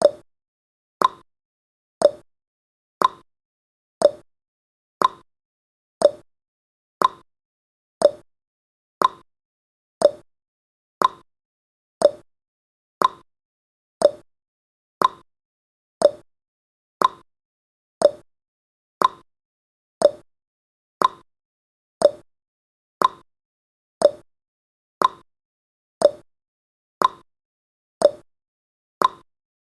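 Countdown timer's ticking sound effect: short, sharp ticks, one each second, steady and evenly spaced.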